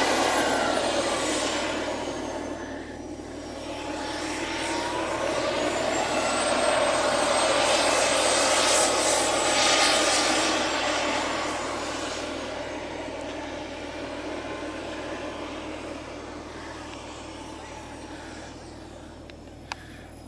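Jetsmunt TS-166 model jet turbine in a Feibo Viper RC jet, running at taxi power with a rushing sound and a high whine that drifts slowly in pitch. It grows louder as the jet rolls close by, then fades as it taxis away. A single short click comes near the end.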